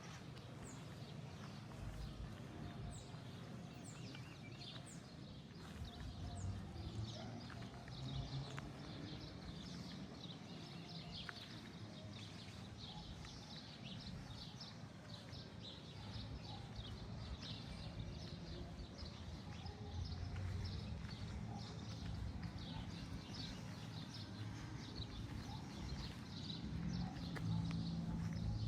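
Small-town ambience: many birds chirping continuously over a low background rumble.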